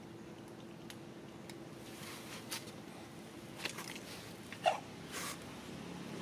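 Cats chewing and crunching food pieces off a tiled floor: a few short, faint crunches, the loudest about three-quarters of the way through.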